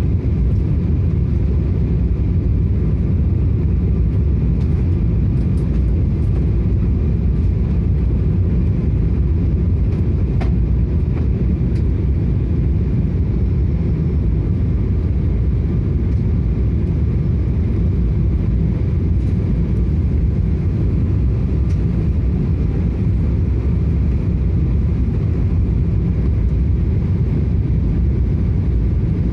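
Steady low roar of a Boeing 777 cabin on approach: engine and airflow noise heard from a passenger seat, with faint steady whine tones above it. There is a light click about ten seconds in.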